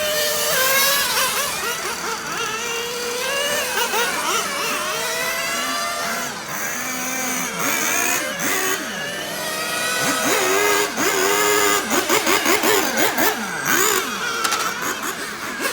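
Small glow-fuel nitro engines of 1/10-scale RC cars revving up and down. Several engine pitches rise and fall and cross one another, and near the end there is a quick run of short throttle blips.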